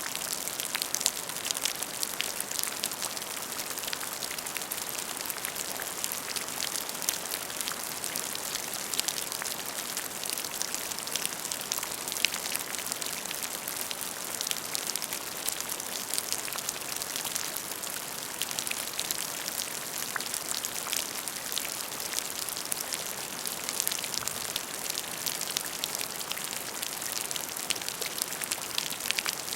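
Steady rain falling: an even hiss made of many small drop impacts, starting abruptly.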